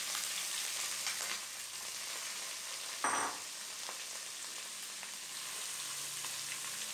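Freshly added sliced onions sizzling in hot coconut oil in an aluminium kadai, a steady hiss, with a brief knock about three seconds in. Near the end a wooden spatula starts stirring them through the oil.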